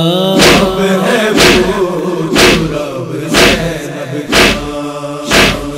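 Male voices of a noha holding a sustained chanted line between verses, over a sharp beat about once a second.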